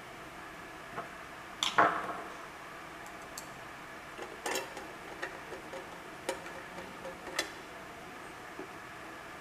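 Hand tools being picked up and handled: a handful of separate light clicks and taps, the loudest pair about two seconds in, over a faint steady room hiss.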